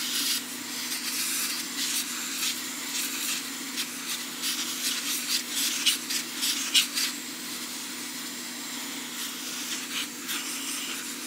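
Hot air rework station blowing, a steady hiss of air over a low motor hum, as its nozzle preheats a circuit board at 200 degrees ahead of desoldering.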